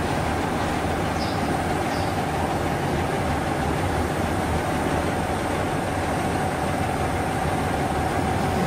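Steady low rumble and hum of a stationary diesel passenger train idling beside the platform. A few faint high chirps sound in the first two seconds.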